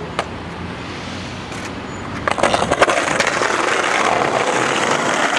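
Skateboard wheels rolling over brick pavement, a loud, rough roll with many small clicks, starting about two seconds in. Before that, a steady low city-traffic hum.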